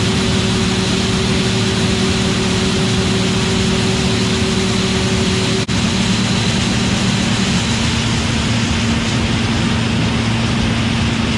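John Deere 8R 410 tractor's diesel engine running steadily under way, a loud steady hum over heavy running noise. A brief drop about halfway through, after which the hum sits slightly higher in pitch.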